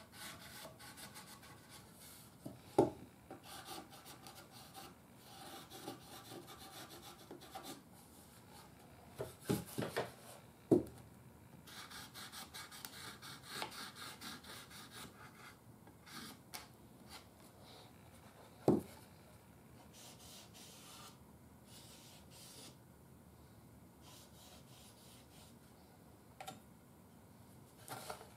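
Felt-tip Marks-A-Lot marker rubbing and scratching over the wood of a small radio cabinet as the black trim areas are coloured in. A few light knocks sound now and then.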